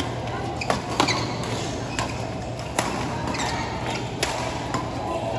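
Badminton rackets striking a shuttlecock, several sharp hits at uneven intervals in a large echoing hall, over a steady background hum and murmur.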